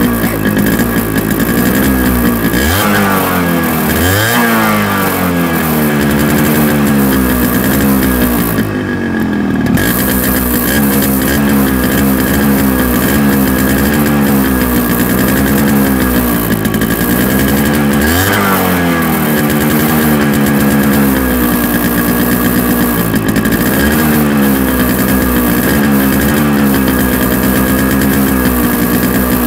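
Yamaha RX100's two-stroke single-cylinder engine running and being revved over and over, its pitch rising and falling with each blip of the throttle. There are sharper climbs about three seconds in and again a little past halfway.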